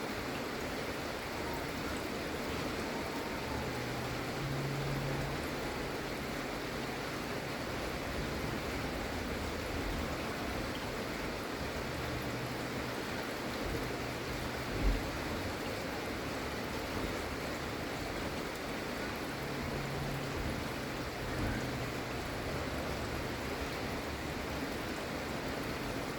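Steady, gentle rain falling, an even hiss with no let-up. A single short low thump sounds about halfway through, and a faint low hum comes and goes underneath.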